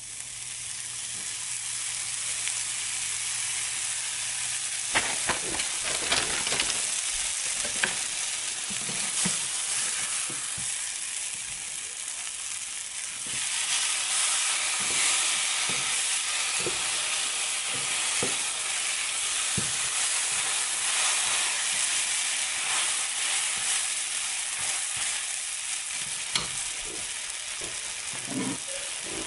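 Bread and cheese frying in butter in a nonstick pan: a steady sizzling hiss that gets louder about halfway through, with scattered light taps and knocks as the sandwiches are handled in the pan.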